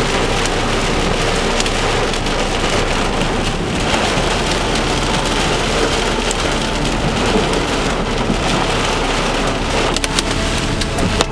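Heavy rain pounding on a car's windshield and roof, heard from inside the car. Near the end sharp ticking impacts set in as hail begins to strike.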